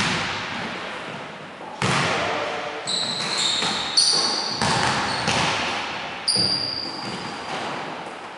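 A basketball thudding on the hardwood floor and at the hoop, about seven hits a second or so apart, each ringing out long in a large echoing gym. Short high squeaks of sneakers on the hardwood come in the middle and later part.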